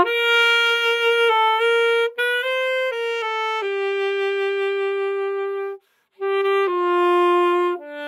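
Alto saxophone playing a slow ballad melody with ad-lib ornaments. A run of short notes steps up and down, then a long held note with light vibrato. A brief breath gap comes about six seconds in, and the phrase continues with further held notes.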